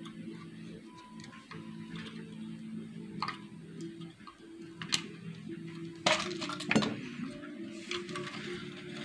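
Small clicks and clinks of tweezers and a CRT TV circuit board being handled, the loudest knocks about six and seven seconds in as the board is lifted, over soft background music.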